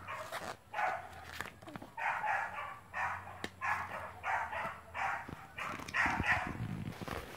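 A dog barking, a string of about a dozen short barks at a little under two a second.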